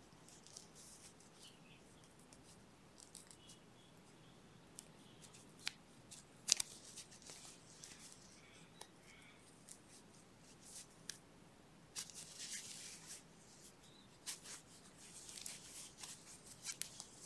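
Crochet hook and yarn being worked by hand while single crochet stitches are made: faint, intermittent rustling of yarn with a few light clicks, the sharpest about six and a half seconds in.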